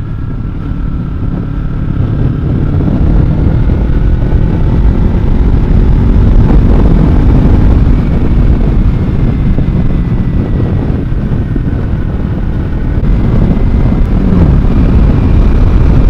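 Kawasaki Z300's 296 cc parallel-twin engine running at road speed, with heavy wind rush on the microphone. The sound builds over the first few seconds, then stays steady.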